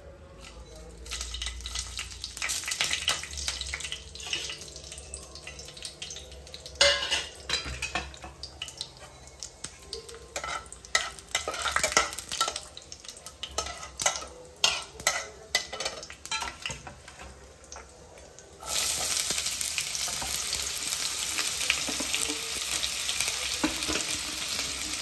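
Whole spices and dried red chillies crackling lightly in hot oil in a non-stick kadai, with scattered scrapes and clicks of a metal spatula stirring them. About 18 seconds in, chopped onions go into the oil and a loud, steady sizzle takes over.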